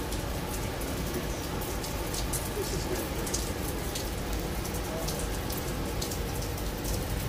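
Steady rain falling on a cruise ship's open deck and railings, a continuous hiss broken by many sharp ticks of individual drops.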